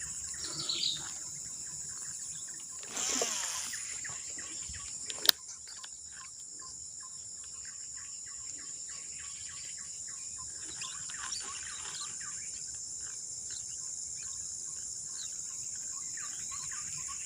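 Steady high-pitched drone of a chorus of insects, with scattered bird chirps. A brief rustling burst comes about three seconds in, and a single sharp click about five seconds in.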